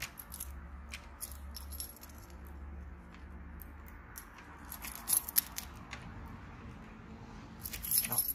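A bunch of keys jangling and a key working a door lock: scattered light metal clicks, then a louder cluster of clicks and rattling near the end.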